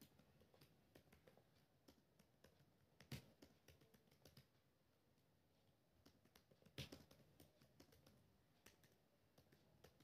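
Laptop keyboard keys clicking faintly in quick, irregular typing, with two harder key strikes about three seconds in and near seven seconds.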